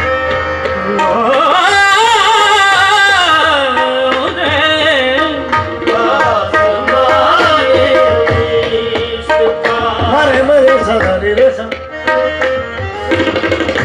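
Qawwali: a voice sings long, wavering, gliding melodic lines over a steady held note, with tabla strokes keeping the rhythm.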